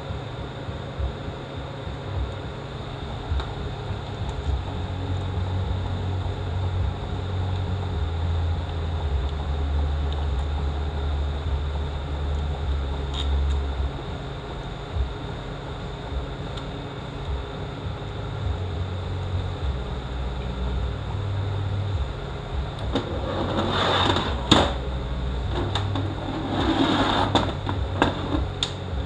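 A steady low hum of workshop background noise. Near the end comes a cluster of clinks and rattles of metal parts and tools being handled.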